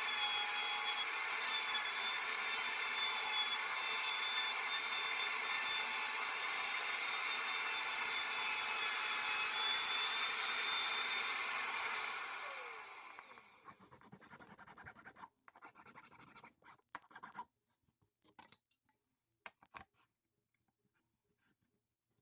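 A power tool working wood runs steadily with a hissing, rasping noise, then is switched off about twelve seconds in and winds down over a couple of seconds. A few small handling clicks follow.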